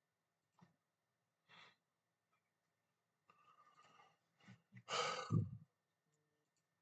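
A man's heavy sigh into the microphone about five seconds in, after a few faint breaths and mouth sounds.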